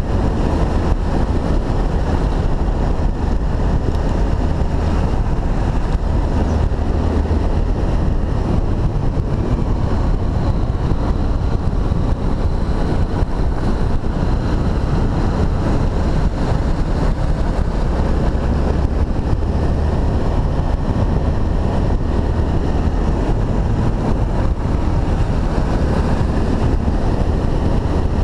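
Honda XRE300's single-cylinder four-stroke engine running steadily while riding on a dirt road, mixed with heavy wind buffeting on the camera microphone.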